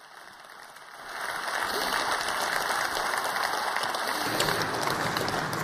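Audience applauding, swelling over about the first second and then holding steady, easing slightly near the end.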